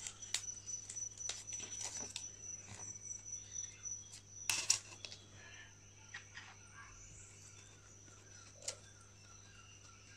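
Soft handling sounds of spreading strips and pins being worked on a styrofoam board: scattered light clicks and rustles, with the loudest scrape about four and a half seconds in and one more click near the end. A faint, regular chirping, about three a second, comes in from about six seconds.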